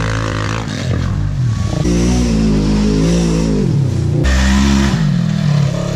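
ATV and side-by-side UTV engines revving, the pitch rising and falling several times, with sudden switches from one machine to another.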